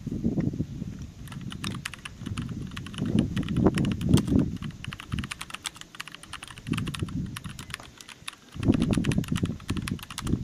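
Computer-keyboard typing sound effect: rapid, uneven key clicks, starting about a second in and matching a caption being typed out letter by letter. Under the clicks, a low rumble swells and fades several times.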